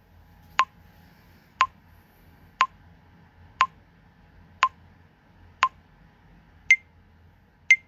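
Smartphone TikTok app's recording countdown timer beeping once a second, short sharp ticks, with the last two higher-pitched as the count nears zero.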